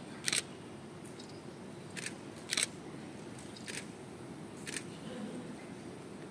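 Camera shutters clicking about five times at irregular intervals, over the low steady hum of a large hall.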